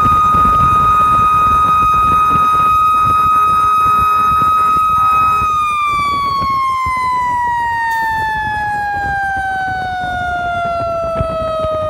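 A fire engine's mechanical siren holds one steady high pitch, then from about five seconds in winds down slowly and evenly in pitch. The truck's engine and road noise run underneath.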